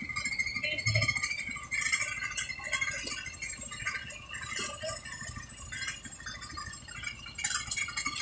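Construction machinery at a concrete pour running: a steady high whine with a rattling clatter over a low engine rumble, and a dull thud about a second in.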